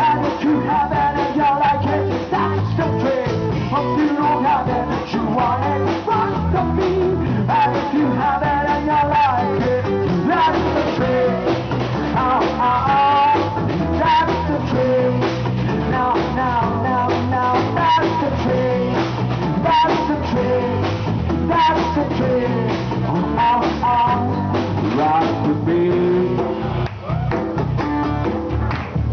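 Live band playing a rock song in an acoustic set: guitar with a singer's vocal line over it, loud and continuous.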